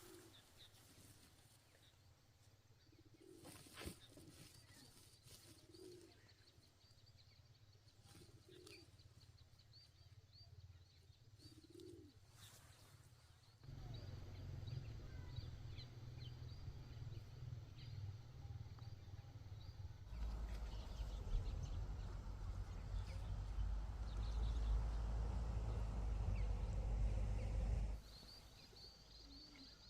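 Faint bird calls, including low repeated cooing, then a low rumbling noise that comes in suddenly about halfway, grows louder, and cuts off abruptly near the end.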